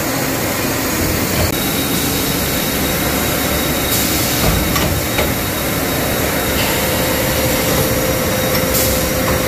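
CNC machining centre running: steady loud machine noise. There are short sharp clicks about four seconds in and again near the end, as the automatic tool changer swaps cutting tools, and a steady tone joins about two thirds of the way through.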